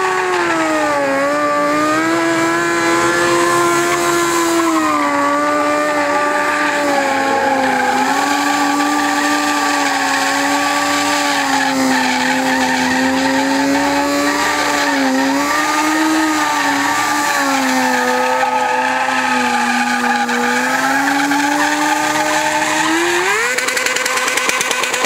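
Stunt motorcycle engine held at steady revs, dipping and rising a little as the rider balances the bike through wheelies and tricks. Near the end it revs up sharply and holds high as the rear tyre spins in a smoking burnout.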